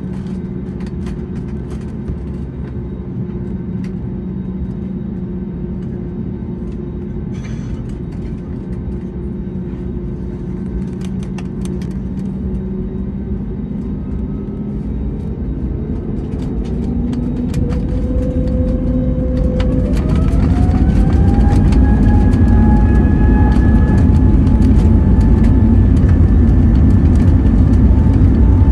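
Airbus A320neo's CFM LEAP-1A jet engines heard from inside the cabin: a steady idle hum, then from about halfway through a rising whine as the engines spool up to takeoff thrust, settling into a loud, steady roar.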